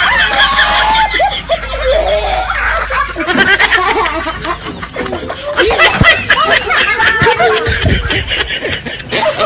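A person laughing and chuckling on and off, loud and close.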